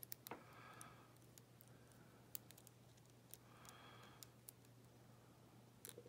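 Faint, scattered small metallic clicks from a Chicago X22 handcuff and a split Medeco spring cover being pushed into it as a shim, over a low steady hum.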